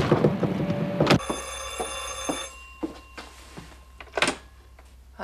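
A low rumble with clanks for about the first second, then a desk telephone's bell rings once for just over a second. A few clicks follow, with a louder clatter near the end as the receiver is lifted.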